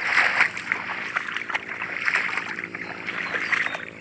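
Footsteps wading through shallow floodwater among grass: repeated splashes and sloshing at an uneven walking pace.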